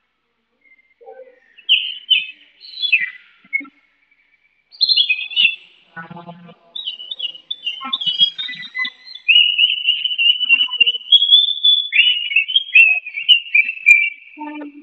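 Chinese hwamei singing: a few short whistled phrases, then from about halfway a loud, nearly unbroken run of rapid whistled notes that rise and fall.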